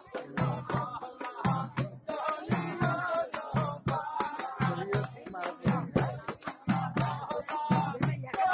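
Live jari gaan, Bengali folk song: a voice singing over a steady drum beat with jingling percussion on each stroke.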